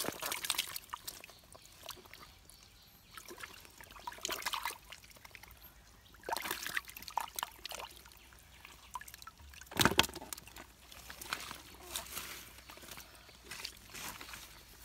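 Hands sloshing and scooping through shallow muddy water and mud, in irregular wet splashes and squelches, with one louder splash about ten seconds in.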